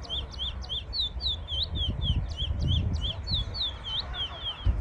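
Caged young male twatwa (large-billed seed finch) singing: a fast string of short, falling whistled notes, about three to four a second.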